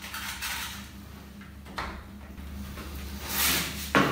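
Scraping and light knocking from handling a wooden hanging rail held against the wall while its remaining screw holes are marked. There is a louder scrape about three seconds in and a sharp knock near the end.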